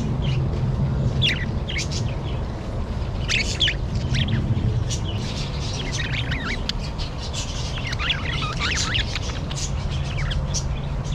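Budgerigars chirping and chattering, many short quick chirps overlapping, busiest about a third of the way in and again near the end, over a steady low hum.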